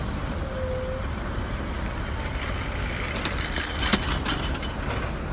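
Heavy diesel engines of site machinery and trucks running with a steady low rumble, with a short cluster of sharp knocks and clatter about four seconds in.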